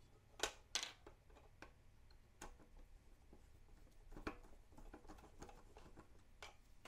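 A few faint, scattered clicks of a Phillips screwdriver working out the small battery-door screws from a Fluke 179 multimeter's plastic case. Two clicks come in the first second and a few more follow at intervals, with near silence between.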